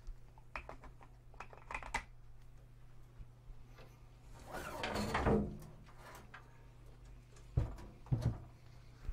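Handling noises at an opened sheet-metal electronics case: a few light clicks, a rustling scrape that swells for about a second midway, and two sharp knocks near the end, over a steady low hum.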